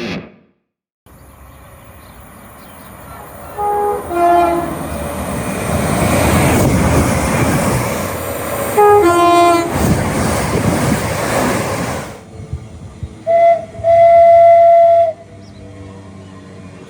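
British train horns. A passing train sounds its two-tone horn twice, each time high note then low, about four and nine seconds in, over the loud rush of the train going by. After a cut, another train gives a short blast and then a longer single-note blast of just over a second.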